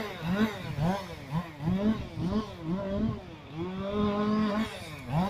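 Chainsaw revved in short throttle bursts about twice a second, its note rising and dropping each time. About three and a half seconds in it is held at high revs for about a second, then blipped again near the end.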